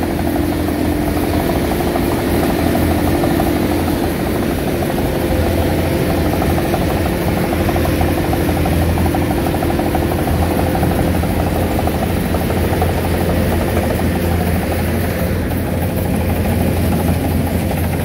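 Tracked rice combine harvester's diesel engine running steadily: a continuous low hum with a few steady tones above it.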